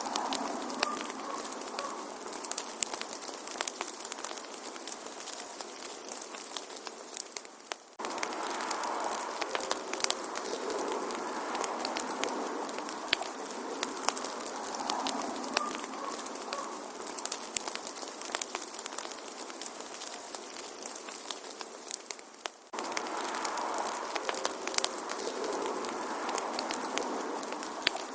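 Wood fire in a fireplace crackling, with frequent sharp pops and snaps over a soft hiss. The sound dips briefly and resumes abruptly twice, about eight seconds in and again near the end, as a looped recording restarts.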